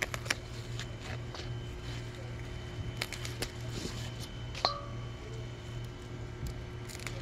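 Kale leaves being snapped off at the stem by hand, a scatter of small snaps and leaf rustles over a steady low hum. A short high beep sounds about four and a half seconds in.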